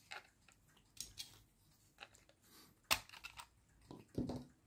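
Plastic battery compartment cover of a Star Master star projector being prised open with a small tool: a run of small plastic clicks and scrapes, the sharpest about three seconds in, then a duller clatter as the cover comes away.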